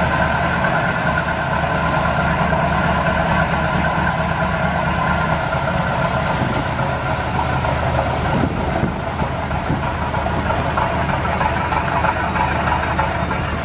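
Boat's diesel engine running steadily and hard, under load as it tows a grounded lightship free.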